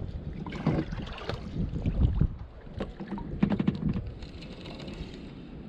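Knocks, thuds and rustling of gear against a plastic kayak hull as the paddle and fishing rod are handled, several bumps in the first four seconds, then a fainter steady hiss of wind on the microphone.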